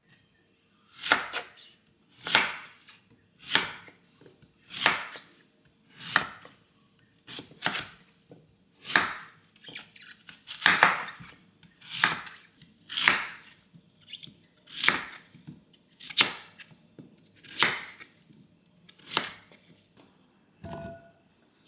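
Kitchen knife slicing food on a cutting board in slow, even strokes, about fifteen cuts at roughly one a second.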